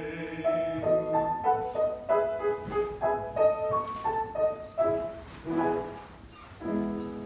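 Instrumental music: a melody of single notes, about three a second, each fading quickly, ending on a held chord near the end.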